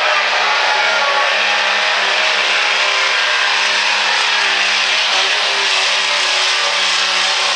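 Dodge Ram pickup's Cummins inline-six turbo diesel held at full throttle under heavy load, pulling a weight-transfer sled. It is a loud, steady drone that does not change in pitch.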